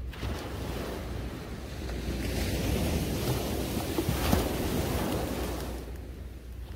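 Small surf breaking on a sandy beach and washing up the shore: the hiss of the wave swells about two seconds in, peaks around the middle and dies away near the end. Wind rumbles on the microphone throughout.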